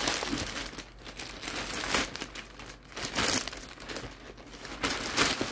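A large plastic bag crinkling and rustling as hands pull it open and rummage inside, in irregular bursts.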